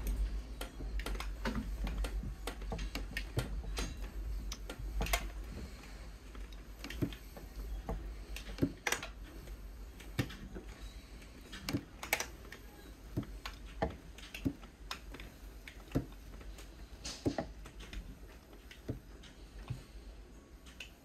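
Irregular sharp creaks and ticks from a high-rise apartment's window frames and fittings as the building sways in a strong earthquake, growing sparser. Beneath them a low rumble fades away over the first several seconds.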